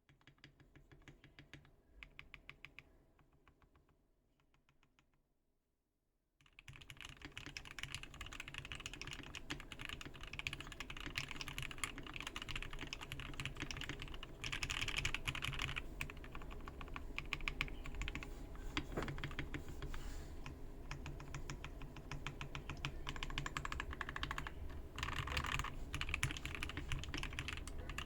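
Typing on a custom KBD67 Lite R2 mechanical keyboard with lubed Gateron Black Ink V2 linear switches, a polycarbonate plate and ABS keycaps, which give it a poppy sound. For the first six seconds or so there are quieter single keypresses; then fast, continuous typing takes over, louder.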